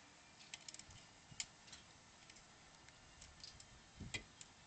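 Faint, irregular clicks of a socket ratchet turning fasteners under a car's front bumper, with a louder knock about four seconds in.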